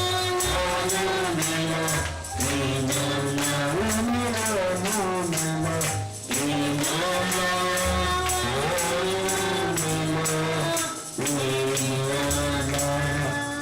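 Music with a steady shaken-percussion beat like a tambourine over a sustained bass and a gliding melody line. It drops out briefly a few times and cuts off abruptly at the end.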